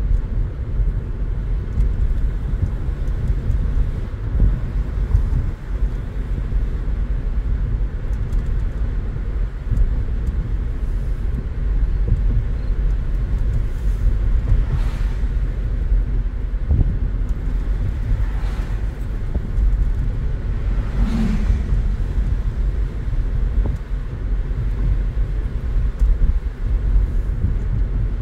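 Road noise inside a moving car's cabin: a steady low rumble of tyres and engine, with three brief whooshes of passing traffic in the second half.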